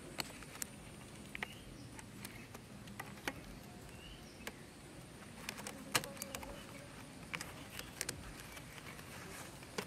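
Faint scattered clicks and taps of hands handling scissors, rubber bands and string, the sharpest about six seconds in, over faint steady background noise.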